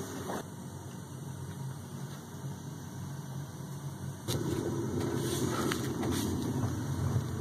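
Hot-water heating boiler running with its circulator pump working: a faint low hum, then a louder steady mechanical hum that comes in suddenly about four seconds in.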